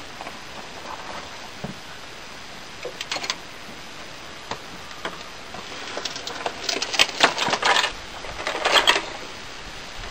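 Light metallic clinking and rattling: a short cluster about three seconds in and a busier run of clinks over the last four seconds.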